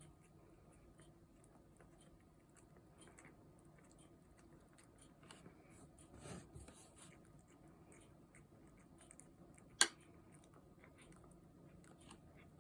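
A cat chewing sasakama fish cake: faint, scattered small chewing clicks, with one sharp click about ten seconds in.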